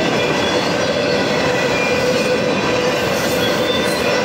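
A freight train of autorack cars rolling past, with steady, loud wheel-on-rail noise and thin, steady squealing tones over it.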